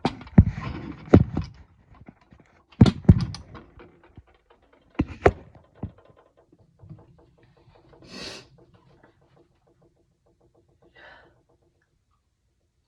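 A person sneezing repeatedly in sharp, loud bursts over the first five seconds or so, then quieter breathy sounds, as if catching breath, around the middle and near the end.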